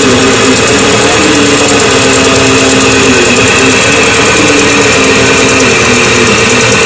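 Hyundai Atoz engine idling just after a cold start, with a 'tek-tek' ticking from the front of the engine. The owner suspects a dry fan belt or the timing belt tensioner and its bearing.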